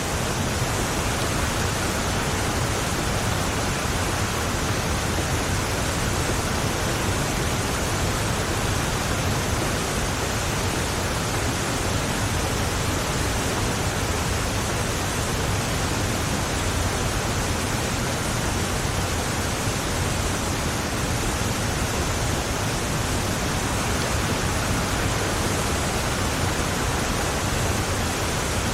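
Heavy rain beating on a moving car, mixed with tyres running on the flooded road, as a steady unbroken hiss.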